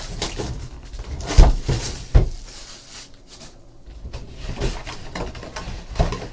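Handling noises on a tabletop: a few sharp knocks and thumps, the loudest about a second and a half in and again at two seconds, between softer rustling and scraping, as a trading card box and its packs are moved about.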